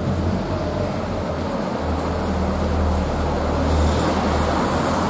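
A car driving past: a steady engine and tyre rumble that grows louder about two seconds in and is loudest near four seconds.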